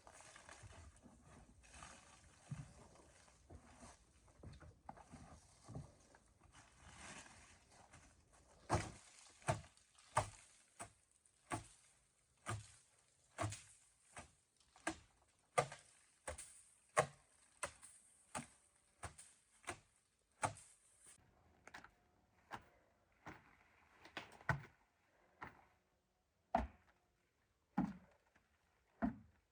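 Repeated sharp knocks, as of a tool striking during car repair work, falling steadily about once every three-quarters of a second, then breaking up into scattered knocks about two-thirds of the way through.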